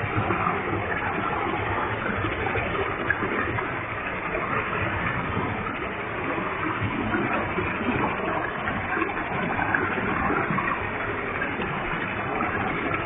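Waterfall with a heavy flow, its falling water making a steady, even rushing sound.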